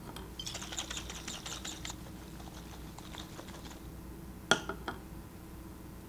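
A stoppered 250 ml glass Erlenmeyer flask, half full of liquid, being shaken by hand: a quick rattling run of small sloshing ticks for a couple of seconds. Then a single sharp knock about four and a half seconds in.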